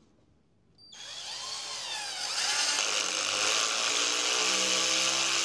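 Black Tools 12 V cordless drill-driver driving a 4.5 × 60 mm screw into soft pine with no pilot hole. The motor and gearbox start about a second in, waver in pitch as they speed up, then run steadily under load.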